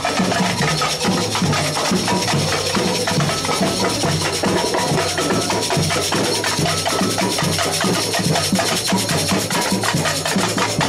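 Samba batucada percussion ensemble playing a fast, steady rhythm: deep bass drum strokes under dense shaker and rattling hand percussion.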